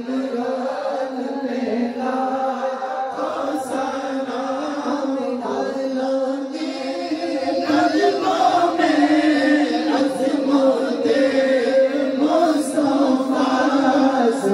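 A group of men chanting a devotional chant in unison into microphones, with several voices holding long notes together. It grows louder about halfway through.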